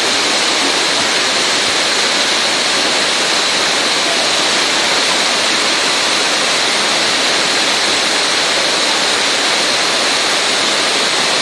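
Torrential rain pouring down and floodwater rushing along a street: a steady, loud rush of water that never lets up.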